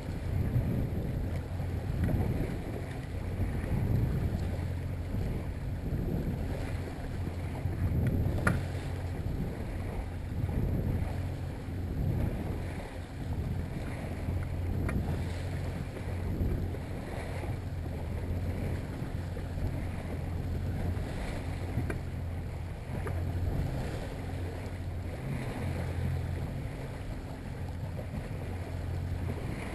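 Yamaha 70 hp outboard motor running steadily at trolling speed, about 1,200 RPM, a low steady hum, under wind on the microphone and water noise around the hull.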